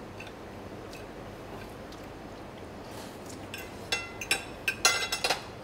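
A table knife and fork clinking and scraping against a plate as salad is cut. A quick run of sharp, ringing clinks comes in the last two seconds.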